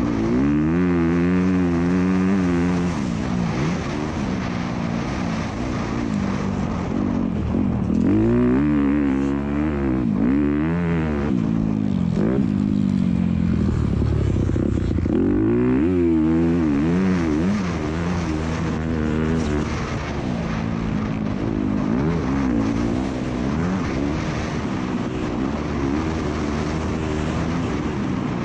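Motocross dirt bike engines racing around the track, revving up and backing off again and again so the pitch keeps climbing and dropping.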